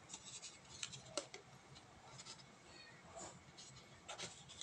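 Faint rustling and scattered light clicks of a smartphone box's white paperboard inner packaging being handled, including the sleeve that holds the USB-C cable.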